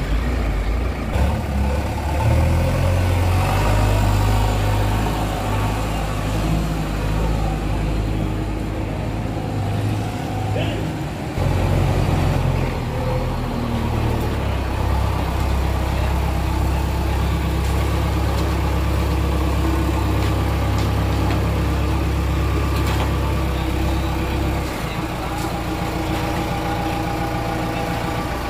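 Diesel engine of a JCB 3DX backhoe loader running under working load, its note shifting as the machine drives and moves the loader arm; it dips briefly about ten seconds in and eases off near the end.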